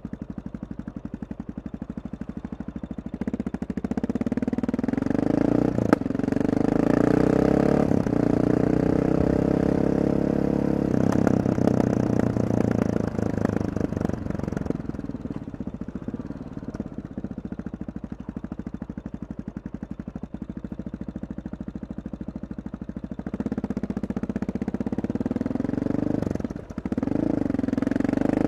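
Honda XR650R supermoto's single-cylinder four-stroke engine under way: running low at first, then pulling away about three seconds in with its pitch rising through the gears. It eases to a steadier, quieter run in the middle and accelerates again near the end, with a brief drop about two seconds before the end.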